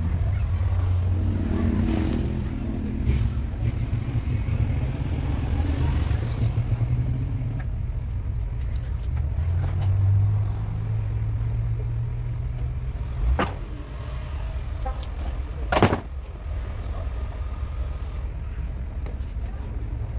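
A motor running with a steady low rumble, with two sharp knocks a couple of seconds apart after the middle.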